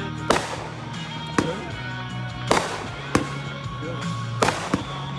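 Consumer fireworks going off: about six sharp bangs at uneven intervals, with music playing underneath.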